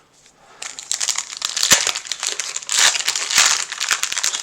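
Foil wrapper of a Pokémon TCG booster pack crinkling densely as it is handled and opened, starting about half a second in.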